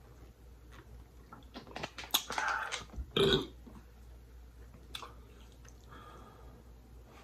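Close-miked eating sounds: mouth clicks and wet chewing of a last bite, then a short burp about three seconds in.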